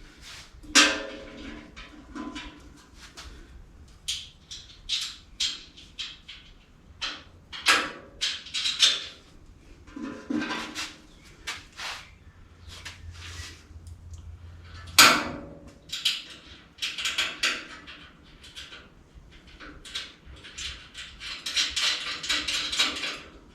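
Irregular metal clanks, knocks and rattles of hand tools and shock-absorber mounting hardware being handled while a rear shock is fitted to a truck frame, with a loud sharp knock about fifteen seconds in and a busier run of rattling near the end.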